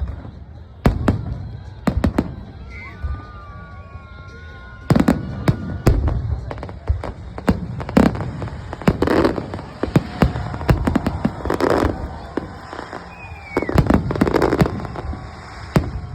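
Fireworks going off: sharp bangs at irregular intervals, some loud and close together, with crackling and a few whistling tones between them.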